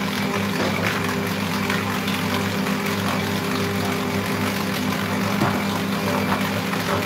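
Electric stand mixer running steadily, its motor humming as it kneads a stiff cookie dough in the rotating bowl.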